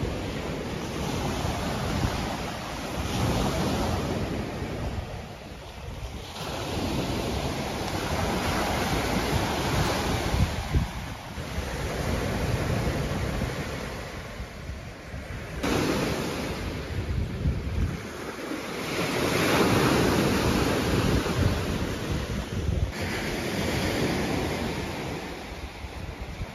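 Lake Michigan waves breaking and washing up a sandy beach, the surf swelling and falling back every few seconds, with wind buffeting the microphone.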